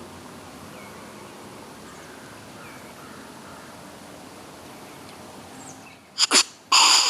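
Quiet woods background with a few faint bird chirps, then about six seconds in a loud snort-wheeze close by: two short sharp snorts and a long drawn-out hissing wheeze. It imitates a dominant whitetail buck's challenge, used to draw a buck in.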